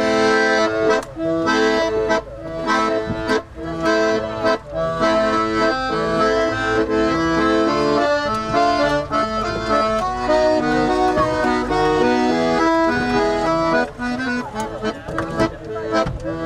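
Accordion music: a tune of held, changing notes over a steady rhythmic beat.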